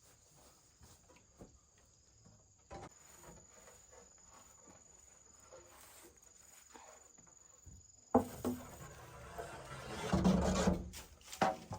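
A steady high insect trill with scattered small knocks. About eight seconds in, loud rustling and crunching from something being handled starts suddenly and lasts about three seconds.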